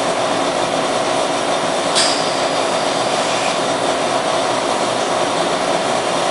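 Steady, loud whooshing noise with a constant hum, like a ventilation or air-conditioning unit running. A brief sharp click about two seconds in.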